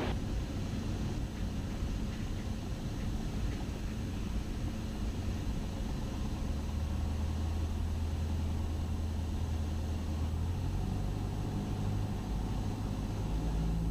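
Cessna 172SP's four-cylinder engine at low power during the landing flare, heard inside the cabin as a steady low drone over a hiss of airflow. Its low tones shift in pitch about six seconds in and again near the end.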